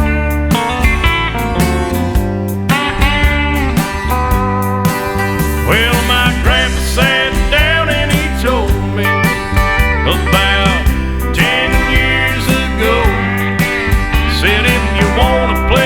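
Country music playing: an instrumental passage with guitar and gliding slide-guitar notes over a steady bass and drum beat.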